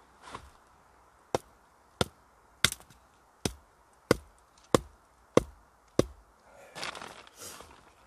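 Split log used as a mallet, knocking a wooden stake into the ground: eight sharp wooden knocks about two-thirds of a second apart, then a brief rustle.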